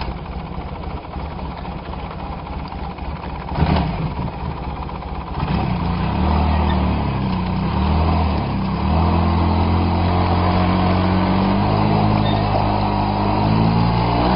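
ATV engine running under load as it pulls a rope to hoist a deer carcass, its revs rising and falling from about five seconds in. There is a brief thump just under four seconds in.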